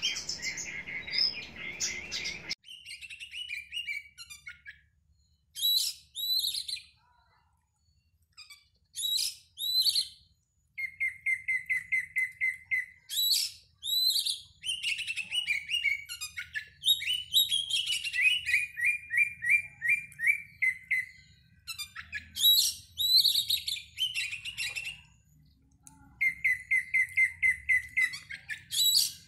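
Oriental magpie-robin song: varied whistled phrases, some runs of rapid repeated notes and some high sweeping whistles, separated by short pauses. A background hiss under the first couple of seconds cuts off abruptly.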